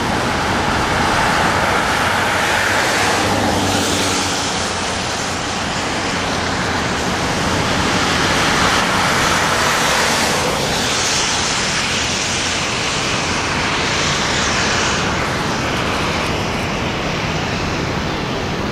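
Steady rushing roar of Niagara Falls and the fast river in the gorge, swelling now and then.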